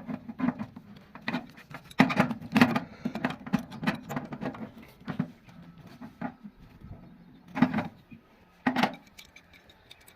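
Irregular clicks, taps and knocks of small hard objects being handled, loudest about two seconds in and again near eight and nine seconds.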